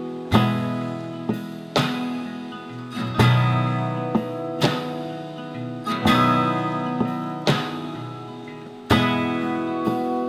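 Background music: an acoustic guitar picking and strumming chords, each chord ringing out and fading.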